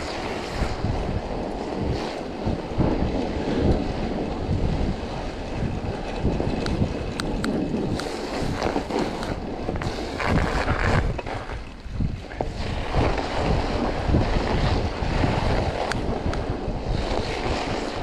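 Wind buffeting the microphone while a mountain bike is ridden through snow: a steady rushing noise with a few sharp clicks, easing briefly about twelve seconds in.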